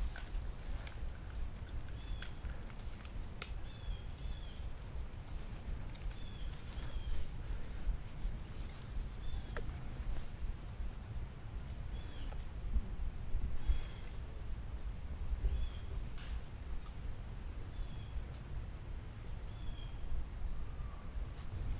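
Outdoor ambience: a steady high insect trill like crickets, with short bird chirps every second or two over a low rumble on the microphone and a few faint clicks.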